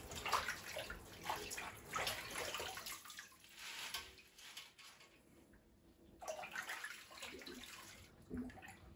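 Water splashing in a kitchen sink as fresh spinach leaves are washed by hand and lifted out into a colander, in short irregular splashes with a quiet pause about halfway through.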